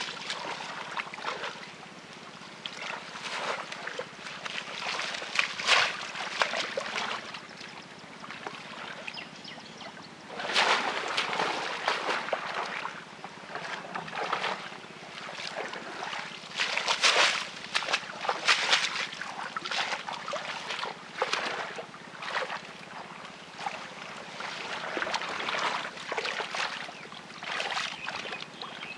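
Irregular splashing and sloshing of shallow muddy water, with rustling of water plants, as a bamboo plunge-basket fish trap is pushed down into the water and hands work inside it for fish. The splashes come in uneven bursts, the loudest about ten and seventeen seconds in.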